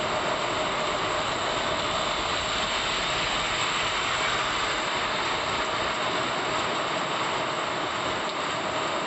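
Heavy downpour: rain falling hard and steadily on a flooded road, an even, unbroken hiss.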